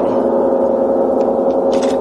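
Large hand-made German gong ringing with a loud, steady, many-toned sustained drone. A few brief clicks sound in the second half.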